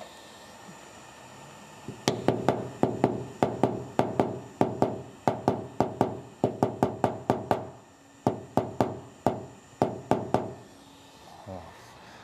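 Paintless dent repair tap-down: a hammer tapping a knockdown tool against a car's steel body panel to lower high spots. About thirty light taps come in quick runs, roughly three a second, starting about two seconds in and stopping about ten and a half seconds in.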